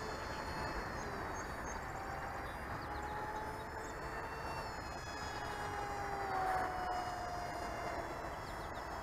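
An RC model airplane's motor and propeller whining in flight, its pitch drifting slowly and sagging lower in the second half, over a steady hiss.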